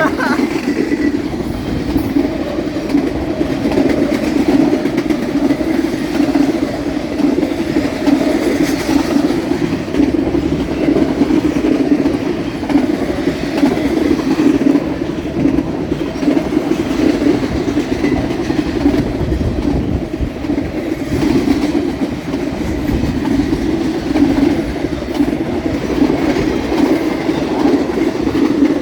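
Freight train of intermodal spine cars rolling past: a loud, steady rumble of steel wheels on rail.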